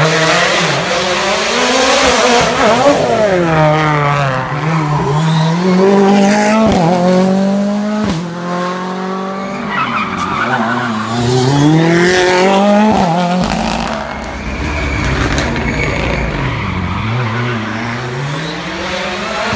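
Rally cars' engines revving hard through a tight hairpin, the pitch climbing and dropping again and again with gear changes and lifts off the throttle, with a few sharp cracks and some tyre squeal.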